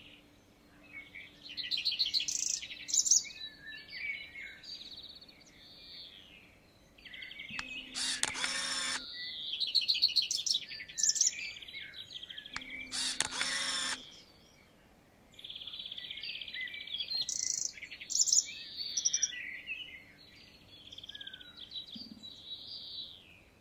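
Small songbirds chirping and singing in repeated short phrases. Two louder, harsher bursts of about a second and a half each come about 8 and 13 seconds in.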